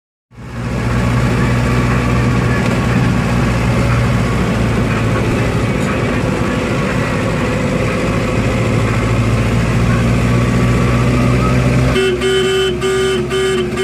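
Steady car engine and road noise heard from inside a moving car. About twelve seconds in, a car horn gives several short toots in a row.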